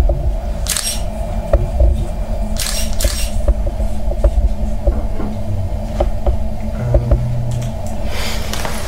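Digital SLR camera shutter firing several times at irregular intervals over a steady room hum, as pictures are taken during the photo shoot.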